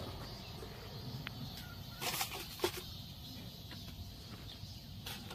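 Quiet outdoor background with a steady low rumble and a few short rustling scuffs, the clearest about two seconds in and another near the end.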